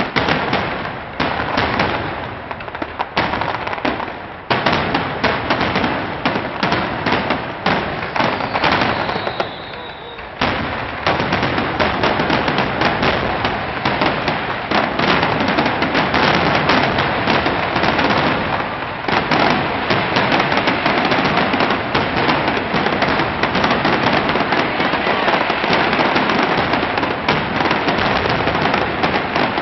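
Aerial fireworks bursting: a run of separate bangs and crackles that, from about ten seconds in, merges into a dense, unbroken barrage of bangs and crackling.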